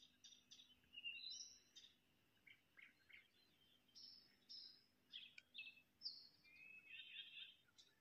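Nightingale singing at night: a faint, varied run of short whistled and slurred phrases mixed with quick clicking notes, with a rapid trill near the end.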